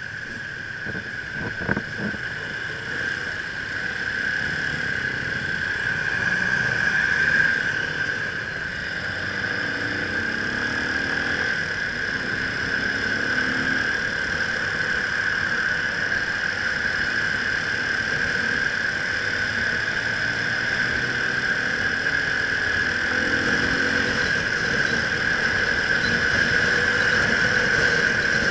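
Motorcycle riding in traffic, heard through a handlebar-mounted camera: a steady high-pitched whine dominates throughout, with the engine's revs rising and falling faintly underneath.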